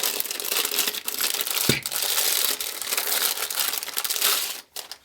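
Plastic packaging crinkling and rustling as a case fan is unwrapped, with a single light knock a little under two seconds in. The crinkling stops shortly before the end.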